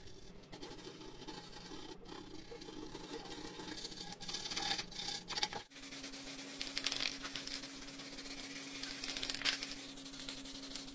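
Hand scrubbing of an aluminium mini dirt bike wheel, a rapid scratchy rubbing as blistered paint lifted by paint stripper is scrubbed off. About halfway the sound drops out briefly. The scratchy rubbing then continues on the bare metal over a steady low hum.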